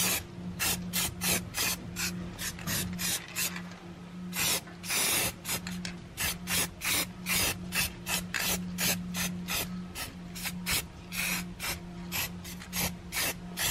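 Aerosol spray-paint can sprayed in quick short bursts of hiss, about two or three a second, with one longer burst about four and a half seconds in. A steady low hum runs underneath.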